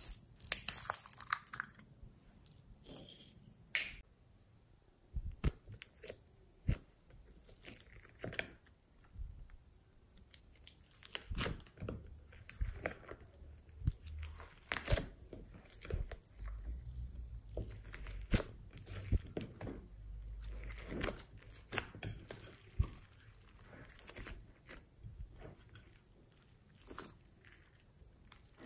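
Glossy slime loaded with floam beads being stretched, folded and kneaded by hand in a glass dish: irregular sticky squelches with crackling pops from the beads.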